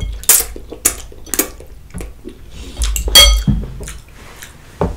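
Metal fork knocking and clinking against a glass bowl: a handful of short sharp clicks, and one brighter, briefly ringing clink about three seconds in.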